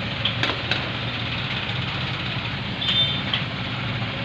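Steady background hiss with a low hum, broken by two sharp clicks about half a second in and a brief high tone about three seconds in.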